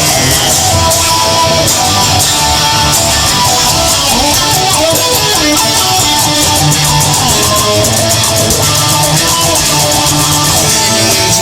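Instrumental break of a rock song: guitar playing a melodic line over a steady band backing with drums and bass, with no singing.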